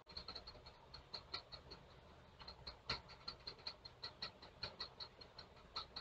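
Faint, irregular clicking of computer keys being typed on, a few keystrokes a second and picking up pace about halfway through, over a low hum.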